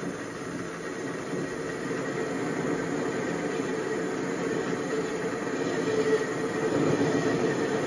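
Paulimot PM180-V mini lathe running steadily under power, its motor and gear train giving a continuous mechanical hum while cutting a thread.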